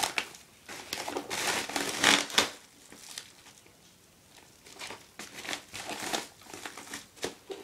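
Plastic and paper packaging rustling and crinkling as a shipping package is unpacked by hand, in irregular bursts with a lull of about two seconds in the middle.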